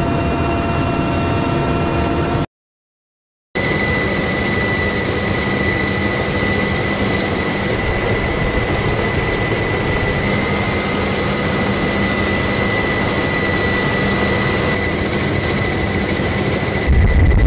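Military attack helicopters in flight: steady turbine whine over rotor noise. The sound drops out to silence for about a second near the start, then resumes unchanged.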